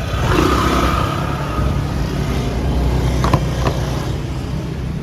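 Motor vehicle running, with steady low engine and road rumble, and two short clicks a little over three seconds in.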